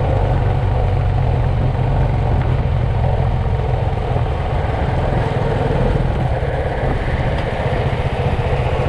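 Motorcycle engine running steadily at highway cruising speed, with a continuous deep rumble of wind and road noise on the microphone.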